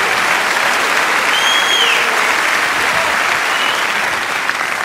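Theatre audience applauding steadily at the end of a comedy routine, with a short high whistle about one and a half seconds in.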